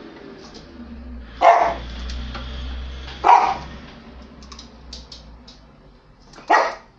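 Border collie giving three sharp barks a second or two apart: territorial warning barks of a dog guarding its resting place in the home.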